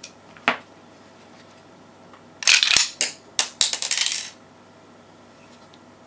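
Mechanical clicks and clatter from handling a Walther P99 P.A.K. 9mm blank-firing pistol and its magazine: one sharp click about half a second in, then a burst of sharp clicks and rattling around the middle lasting about two seconds.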